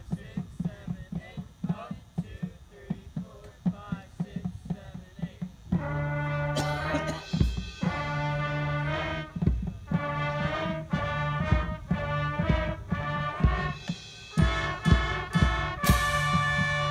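A marching band's brass section comes in about six seconds in, playing loud held chords in short phrases, with sharp drum hits among them. Before that, only a steady, quick ticking beat and faint voices are heard.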